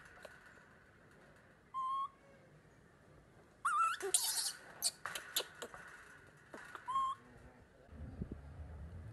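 Baby monkey giving three short, high coo calls a couple of seconds apart, each a quick rising-then-falling note. Between the second and third calls comes a cluster of sharp clicks and clinks from the chain-link fence it is clinging to.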